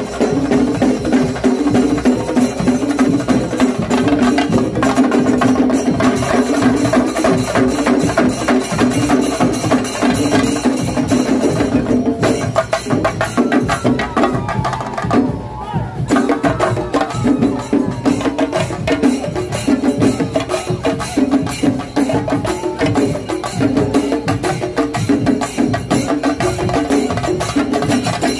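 Shinkarimelam ensemble of chenda drums beaten with curved sticks, with ilathalam hand cymbals, playing a fast, dense rhythm. The ensemble thins out briefly around the middle.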